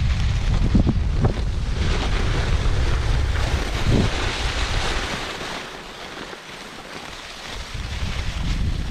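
Wind buffeting the microphone with a steady rushing hiss. It eases off about six seconds in and picks up again near the end.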